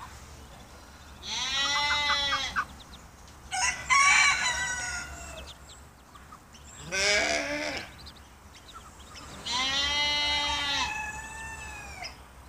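Rooster crowing four times, each crow lasting about a second, with short pauses between them.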